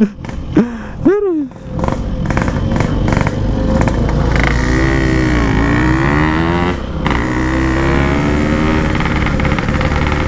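Motorcycle engine running under way, with its pitch dipping and rising again about halfway through and a brief break near seven seconds in.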